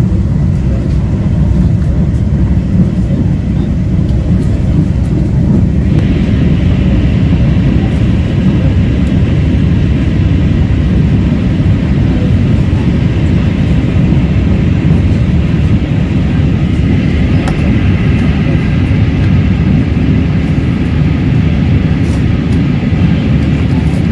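Tanzania SGR electric train running at speed, a steady low rumble heard inside the carriage. About six seconds in, a faint steady high whine joins it.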